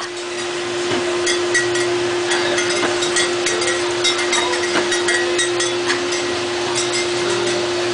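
Mechanical bull running: a steady motor hum under a rapid scatter of short knocks and clicks as the machine bucks and turns.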